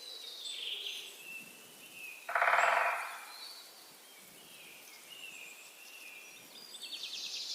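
Several wild birds calling in short, high chirps and trills, overlapping throughout. About two and a half seconds in comes a louder, lower rattling call of rapid pulses lasting under a second.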